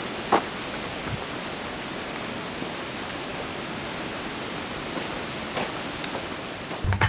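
Steady rushing outdoor background noise, with a few faint short ticks; music cuts in just before the end.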